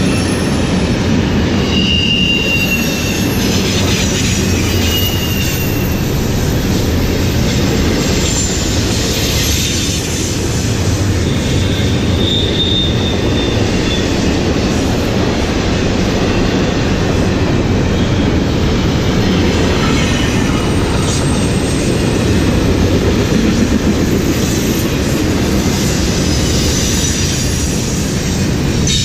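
Double-stack intermodal container train of well cars passing close by: a steady rumble of steel wheels on the rails, with brief high-pitched wheel squeals about two seconds in and again around twelve seconds in.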